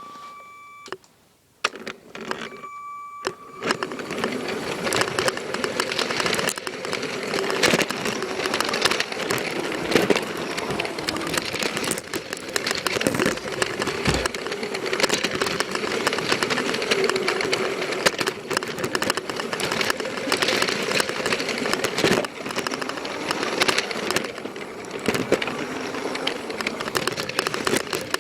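Two short beeps, then a machine starts about three and a half seconds in and runs steadily with a busy rattle.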